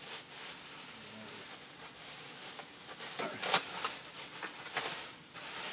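Thin plastic bag and bubble wrap rustling and crinkling as they are pulled open by hand, with a few sharper crackles, the loudest about three and a half seconds in.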